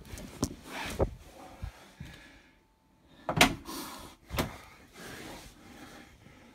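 Rustling handling noise with several knocks, the sharpest about three and a half seconds in and another a second later.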